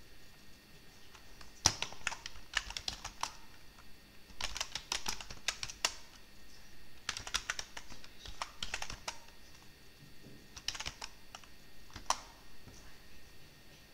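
Typing on a computer keyboard: runs of quick keystroke clicks lasting a second or two, with short pauses between them.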